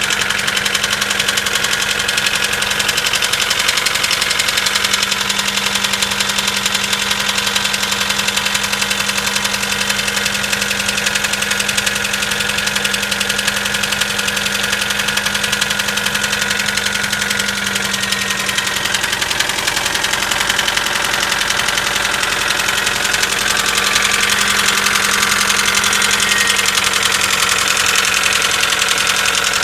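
Mitsubishi 4G94 inline-four engine idling cold with a fast, steady knock running through it: the cold-engine knock that the owner is recording. It runs a little louder in the last few seconds.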